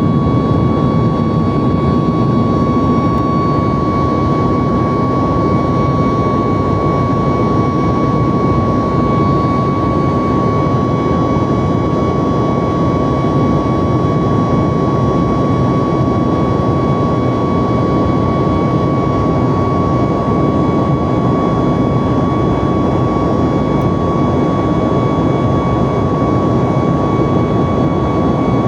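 Boeing 737 MAX jet engines running steadily after takeoff: a loud, even rush of noise with a constant high whine.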